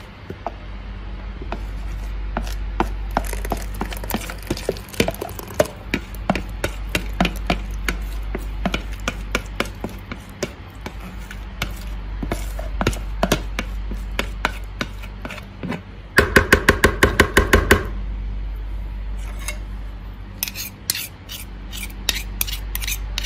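Food being prepared with kitchen utensils: irregular knocks, clicks and scraping, with a quick run of about ten strikes near the end. A steady low hum runs underneath.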